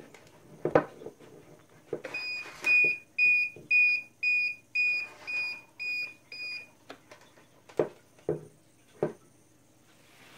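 Dogtrace D-Fence 1001 transmitter sounding its broken-wire alarm: about ten short high beeps, about two a second, which stop about two-thirds of the way through. Sharp plastic clicks from the boundary wire being handled at the transmitter's terminal come once before the beeping and a few times after it.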